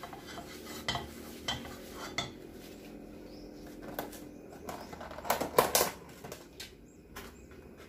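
Stainless-steel frying pan being wiped dry with a paper towel on a gas hob, with a few metal knocks from the pan in the first couple of seconds. About five seconds in comes a short, louder clatter of dishes and utensils.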